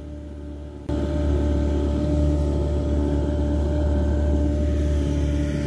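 Boat motor running steadily with a constant hum. It gets suddenly louder about a second in.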